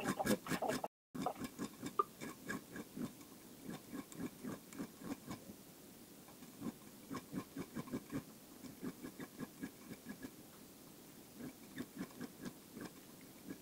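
Needle file rasping on a handmade metal ring: quick short strokes, about three a second, in runs broken by brief pauses.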